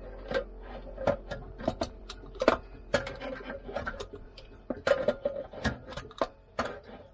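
Adjustable spanner clinking and knocking on the heating element's large hex nut on a water heater tank as it is worked around, giving sharp metallic clicks at irregular intervals, some ringing briefly.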